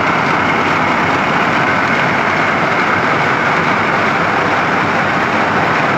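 Weaving loom running at speed, a loud steady mechanical din.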